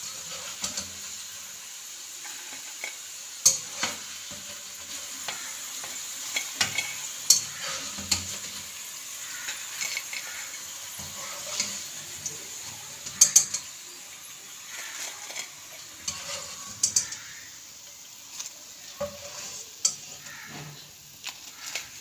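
Hot ghee sizzling steadily in a frying pan, with scattered sharp clinks of a metal utensil against the pan and plates. The hiss thins a little in the last few seconds.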